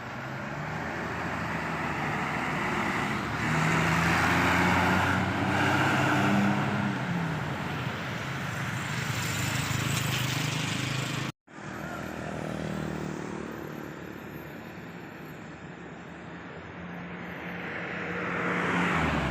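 Large bus engines running as buses drive past close by. The engine pitch rises and then sinks as the sound swells and fades. The sound cuts off abruptly about eleven seconds in, and another vehicle then approaches.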